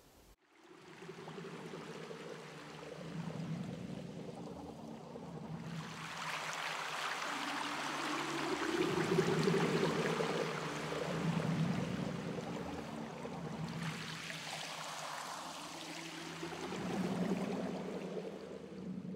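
Ambient meditation music: sustained synth-pad tones over a rushing water sound, which swells in about six seconds in and falls back around fourteen seconds.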